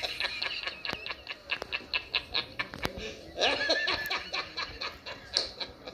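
A man laughing hard, a long rapid run of short 'ha' bursts.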